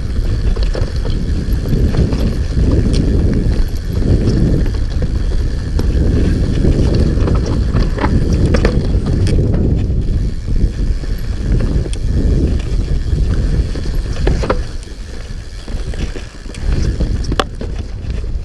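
Hope HB160 mountain bike descending a rough dirt singletrack: a continuous heavy rumble from the tyres and bike over the ground, broken by sharp knocks and rattles over bumps. It eases off briefly near the end before picking up again.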